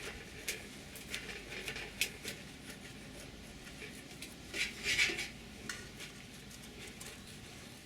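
Scattered light clicks and clatter of small hard objects being handled, with a brief busier cluster about five seconds in.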